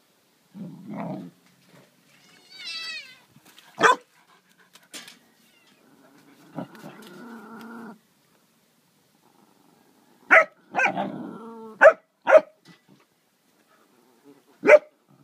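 A dog and a cat fighting: low growling, a high wavering cry, and about six short, loud barks, most of them in the second half.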